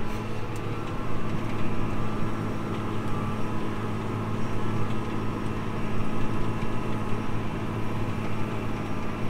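Case IH 245 tractor engine running steadily under load while pulling a tillage disc through the field, heard from inside the cab as an even hum.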